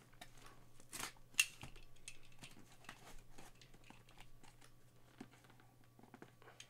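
Box cutter slicing through the packing tape and cardboard of a sealed case, a faint scratchy, crinkly cutting with scattered clicks and one sharp click about a second and a half in.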